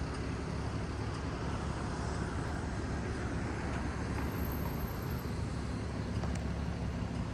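Steady low rumble of road traffic, a city bus's engine among it, holding at an even level without passing by.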